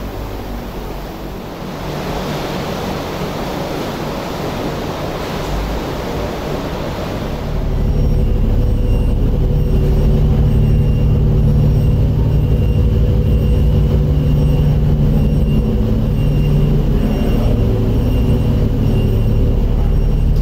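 A steady rushing air noise at first. About seven seconds in, a louder, steady low drone with a constant hum takes over: a moored ferry's engines running at the pier.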